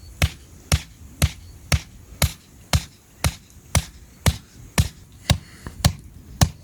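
Steady rhythmic chopping, one sharp stroke about every half second, about thirteen strokes.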